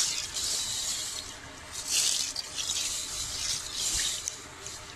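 Whole green moong beans being rubbed by hand in water in a steel bowl: the water sloshes and swishes in swells, loudest at the start and again about two seconds in, softer near the end.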